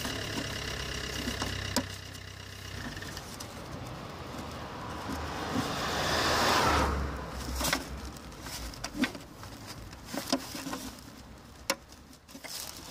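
A road vehicle passing, its noise swelling and fading about six to seven seconds in, over a low steady hum. Scattered sharp plastic clicks and taps come in the second half, from the clips of a removed car tail-light assembly being pried and handled.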